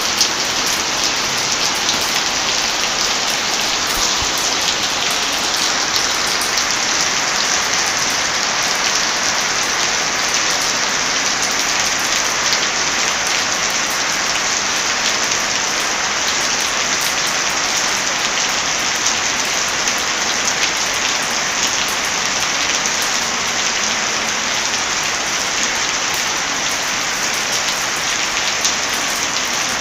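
Heavy rain falling steadily, mixed with the scattered sharp pops of a crackling wood fire.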